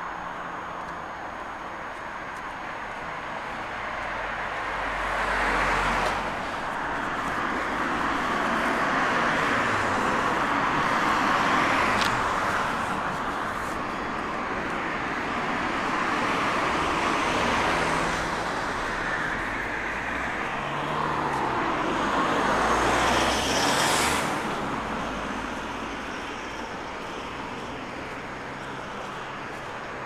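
Road traffic: a steady run of cars and other vehicles passing one after another, the tyre and engine noise swelling and fading as each goes by.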